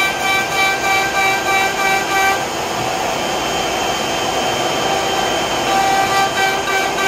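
Router spindle of a Romaxx WD-1 CNC router whining steadily as its bit carves a grid of pyramids into a wooden trivet blank. The cutting sound pulses about twice a second and evens out for a few seconds in the middle.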